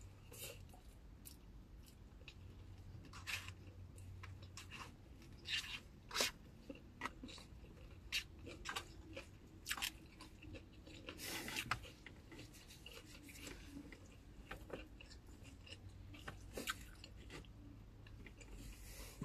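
A person chewing and eating food close to the microphone, with faint, irregular crunches and clicks.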